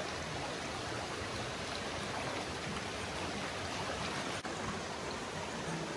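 Mountain river water rushing over rocks, a steady even wash of noise, with one brief dip about four and a half seconds in.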